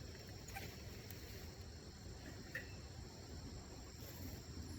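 Faint, steady high-pitched chirring of insects, with a low hum underneath.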